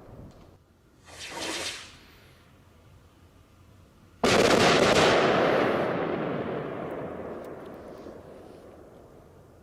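A firework rocket launching with a short hiss about a second in, then bursting with a loud bang about four seconds in, its rumbling echo fading slowly away.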